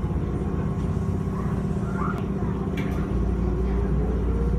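Nagano Electric Railway electric train heard from the cab, running with a steady low rumble of wheels on the track. About three seconds in the rumble strengthens and a thin motor whine starts rising in pitch as the train picks up speed.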